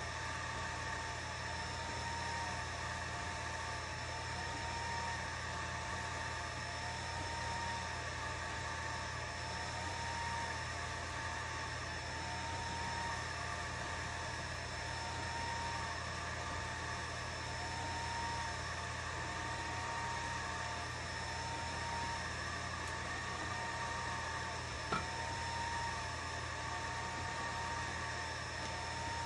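Atomstack A10 Pro laser engraver running an engraving job: a steady fan hum with a high motor whine that lifts in pitch about every two seconds as the head sweeps back and forth. One sharp click near the end.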